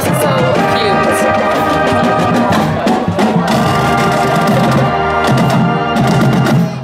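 High school marching band playing live: brass with sousaphones carrying the tune over a drumline beating steady time.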